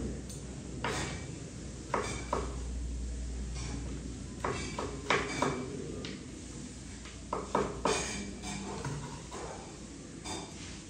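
Kitchen knife cutting a potato into finger chips on a wooden chopping board: irregular sharp knocks of the blade striking the board, about a dozen in small clusters. A faint low hum sits under the first few seconds.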